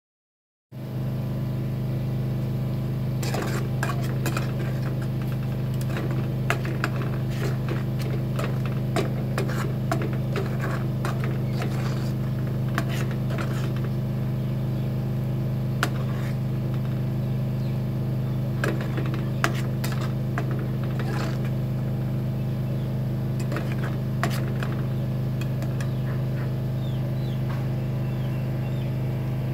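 Metal spoon stirring in an aluminium cooking pot, with many short clinks and scrapes against the pot, over a steady low machine hum. The clinks are busiest in the first half.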